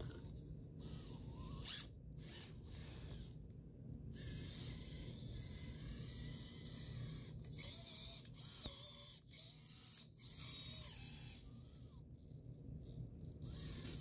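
Micro brushless motor and gear train of an Axial SCX24 rock crawler whining as it crawls, the pitch rising and falling with the throttle and dropping out briefly a few times. A sharp click about two seconds in.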